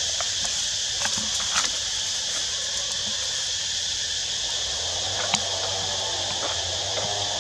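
Steady high-pitched insect chorus in the forest, with a few short clicks over it, the sharpest about five seconds in.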